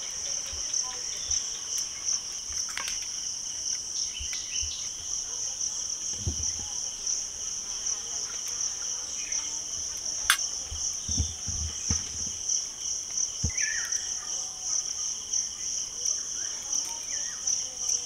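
A steady, high-pitched chirring chorus of insects that runs without a break, with a few faint clicks and low soft thumps beneath it.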